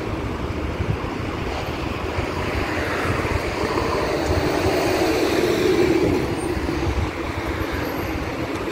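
Steady vehicle and traffic noise heard from outside, with a gusty low rumble, swelling slightly about five to six seconds in.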